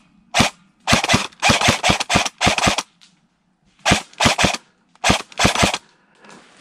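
Airsoft gunfire: about eighteen sharp cracks fired in quick, irregular clusters of two to six shots, with a short pause a little after the middle. A steady rustling hiss comes in near the end.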